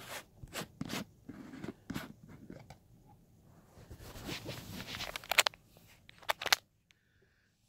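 Handling noise as a plastic jar of hair cream is opened and the phone is moved about: a run of sharp clicks and scrapes that stops abruptly near the end.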